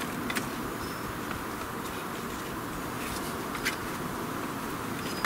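Thin wooden sticks knocking and clicking against each other as they are handled and laid into a stick wall: a few sharp clicks, the loudest near the end, over a steady buzzing drone.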